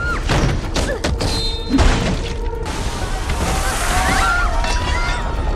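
Film sound effects of a ship's cabin being thrown about: a run of crashes and thuds, the loudest about two seconds in, then a loud rushing noise, over orchestral score. A girl cries out at the start.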